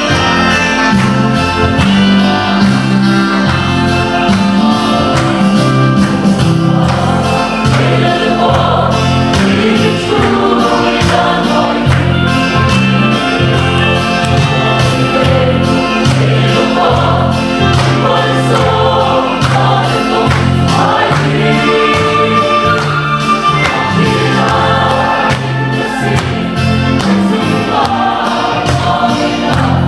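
Mixed choir of women and men singing a gospel hymn together in harmony, with strong low bass notes beneath the melody.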